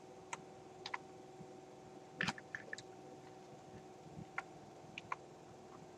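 A few light, scattered clicks of a computer being worked while an equation is copied and pasted, with a small cluster a little past two seconds in, over a faint steady hum.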